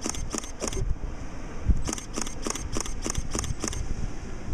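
Quick, regular swishing footsteps of someone hurrying through grass, about three steps a second, in two runs with a pause of about a second between them. Wind rumbles on the microphone beneath.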